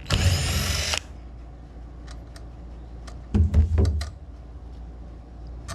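Small metal parts and tools clicking and clattering as an Edelbrock 1406 carburetor is taken apart by hand, with two louder bursts of rattling: one lasting about a second at the start and another about three and a half seconds in.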